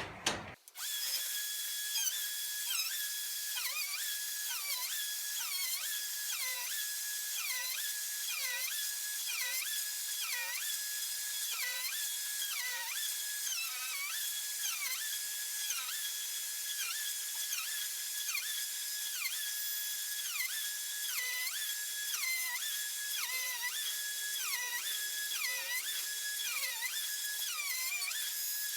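DeWalt router with a flattening bit, running and cutting across a maple slab, a steady high-pitched whine. Its pitch dips over and over, less than a second apart, as the bit bogs under load on each stroke.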